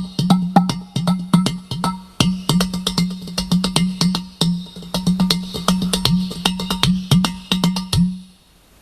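Udu clay pot drum played by hand in a rapid improvised rhythm: quick sharp slaps and taps, several a second, over a steady low hum, with a few bass notes sliding down in pitch. The playing stops about eight seconds in.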